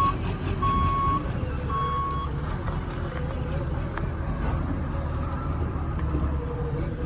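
Electronic beeping, one steady tone about once a second, which stops about two seconds in, over a low steady rumble.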